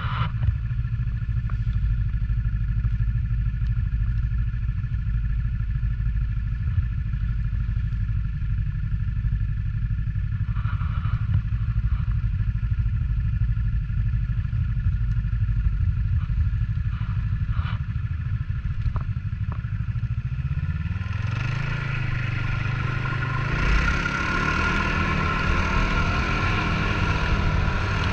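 Snowmobile engine running steadily at low revs, then climbing in pitch about three-quarters of the way in and rising and falling with the throttle as the machine speeds up.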